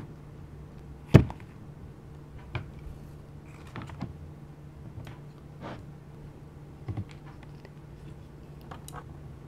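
Light clicks and knocks of chopsticks, ceramic plates and clear plastic takeout boxes as dim sum is moved from the boxes onto the plates: a scattering of separate taps, the sharpest a little over a second in.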